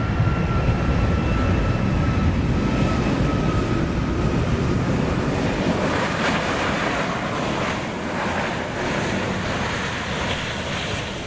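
Jet airliner engines running loud on the runway, a steady roar with a high whine that fades out about four seconds in.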